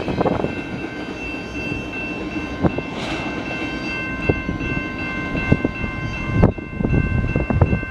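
Freight cars rolling past and away on the track: steel wheels clicking and knocking irregularly over the rail joints, with a steady rumble and a steady high ringing tone.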